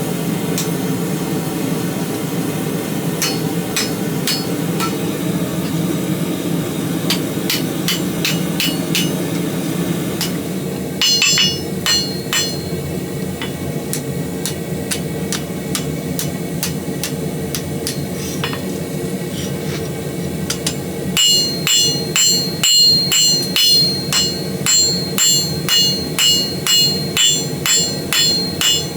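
Hammer blows on hot steel at the anvil while forging a BBQ fork, over a steady low roar. The first part has scattered, lighter strikes. In the last third the hammering settles into a steady rhythm of ringing blows, about one and a half a second.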